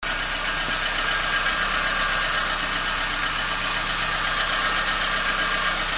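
Chevrolet Corsa engine idling steadily with the lights off, running normally without the odd noise that appears when the lights are switched on.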